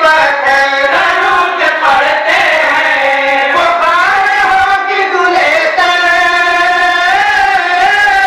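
A group of male voices singing together in unison, unaccompanied, in long held notes that bend slowly up and down.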